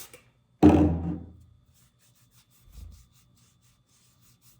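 A sudden loud thump-like burst about half a second in that fades over about a second, a soft low knock near three seconds, then faint repeated rubbing strokes as blush swatches are wiped off the skin.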